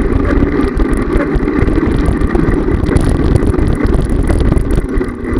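Wind buffeting on a bicycle-mounted camera's microphone, mixed with the rumble and rattle of the bike's tyres rolling over a brick-paved path: a loud, steady, low rumbling noise.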